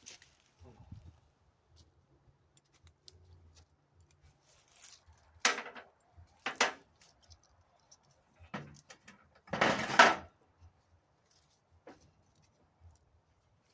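Handling noises from work on a go-kart: a few short clanks and rattles of parts and tools, with a longer, louder clatter about ten seconds in.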